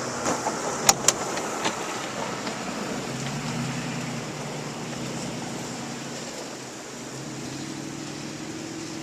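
Ford F150 pickup's engine running steadily during snow plowing, with a few sharp knocks about a second in and the engine note rising a little near the end.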